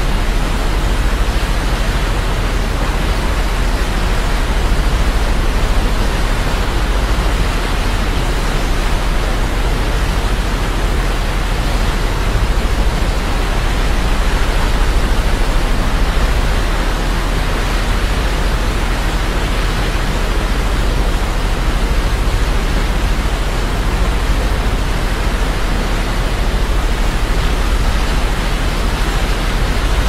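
Steady, unbroken rushing of a large waterfall blended with white noise, with a strong deep rumble underneath.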